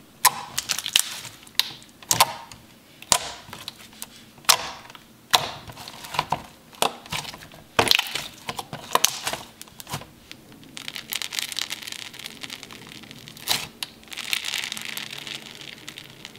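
Hands squishing and poking thick, glossy slime, trapped air popping out in sharp cracks and clicks at irregular intervals. In the last few seconds a steadier crinkling hiss takes over.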